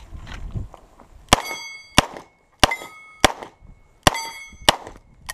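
Six revolver shots fired at steel targets, roughly two-thirds of a second apart, with the steel plates clanging and ringing after the hits.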